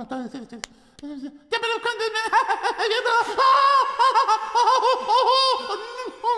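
Pingu's high cartoon voice babbling and giggling in quick wavering bursts, louder from about a second and a half in, with a single sharp click shortly before.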